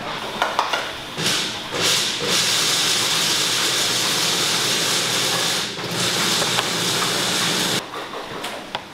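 A few light knocks, then a steady, loud hiss of venting steam that starts about a second in and stops shortly before the end.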